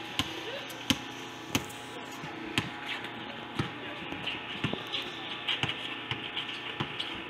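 Basketball being dribbled on a court, a sharp bounce roughly once a second, over a murmur of background voices.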